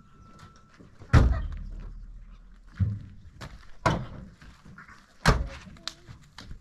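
Heavy thuds and bangs on a pickup truck's metal body, four in all about a second apart. The first, about a second in, is the loudest and has a low rumbling decay after it.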